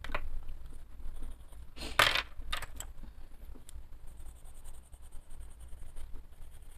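Coloured pencils clicking and clattering against each other as one is picked out from among them, with a short click at the start and a loud rattle about two seconds in. Faint scratching of a pencil on paper follows.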